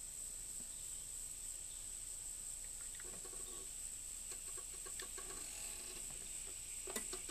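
Faint outdoor background of a steady, high-pitched insect drone, with soft chicken clucks repeating from about three seconds in. A couple of sharp clicks come near the end.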